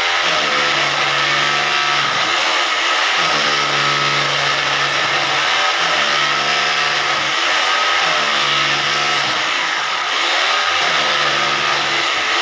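Electric hammer drill running continuously while cutting, its motor pitch sagging and recovering again and again, every one to two seconds, as the bit is loaded.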